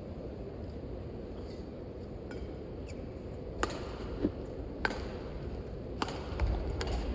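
Badminton rackets striking the shuttlecock in a rally: three sharp hits a little over a second apart, with a few smaller clicks and low thuds near the end over steady hall noise.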